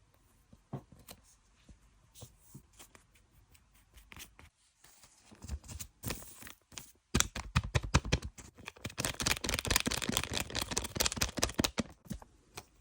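Butter fizz slime being squished and worked by hand. It gives scattered soft clicks at first, then from about halfway a dense, louder run of rapid wet clicks and crackling pops.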